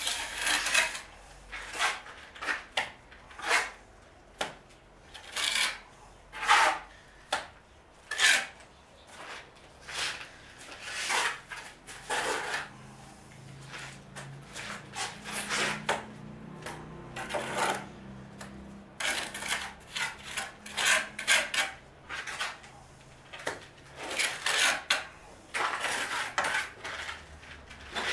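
Steel mason's trowel scraping and spreading cement mortar on brickwork, in irregular short strokes with the odd sharper scrape or clink of the metal blade.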